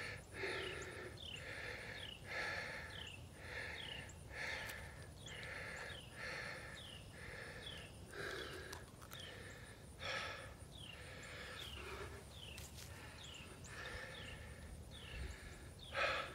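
A man breathing hard close to the microphone with effort, about one breath a second, with a stronger breath near the end.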